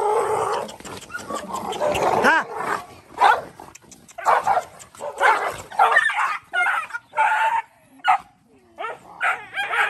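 Several dogs fighting, giving short barks and yelps about once a second.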